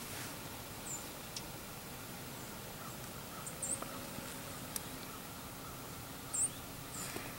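Quiet outdoor ambience with a steady faint hiss, broken by a few short, very high-pitched bird chirps, the loudest about six seconds in.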